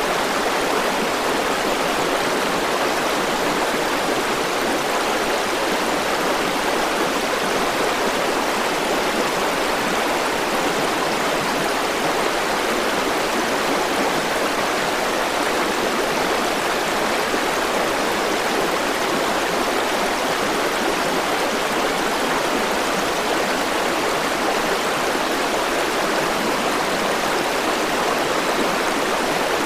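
River water rushing and flowing steadily, a continuous even rush with no distinct splashes or pauses.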